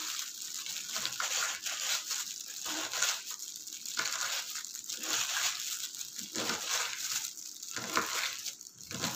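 Kitchen knife chopping fresh pirandai (adamant creeper) stems finely on a wooden cutting board: a steady run of quick cutting strokes, several a second.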